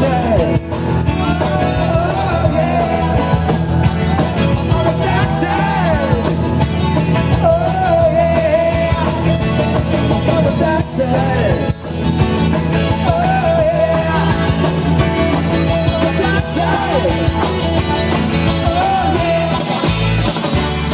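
Live rock band playing loud, with electric guitar and a man singing.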